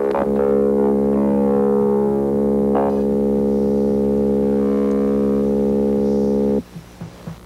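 Synthesizer score: a sustained low tone with many overtones, with falling sweeps passing through it. It cuts off suddenly about six and a half seconds in, leaving a few quieter scattered sounds.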